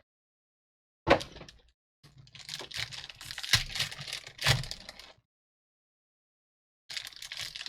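Trading-card packs and cards being handled: a sharp snap about a second in, then rustling and crinkling with two louder clicks, and more rustling near the end.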